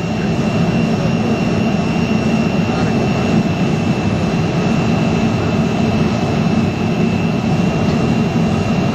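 Steady roar of a jet airliner's engines and airflow heard from inside the passenger cabin on the approach, flaps extended, with a thin steady high whine running through it.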